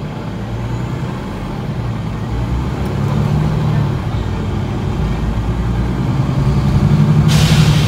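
Cummins ISL diesel engine of a 2009 Nova Bus LFS, heard from inside the bus as it accelerates: the engine note rises, dips about four seconds in, then rises and grows louder again. A short hiss near the end.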